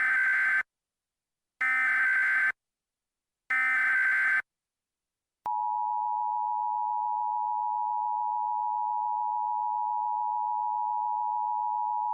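Emergency Alert System SAME header: three identical short bursts of screeching digital data, about two seconds apart. About five and a half seconds in, a long steady attention tone begins. Together they mark the start of a new alert activation.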